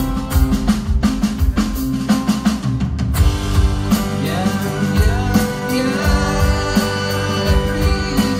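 Live rock band playing, with acoustic and electric guitars over a steady drum beat.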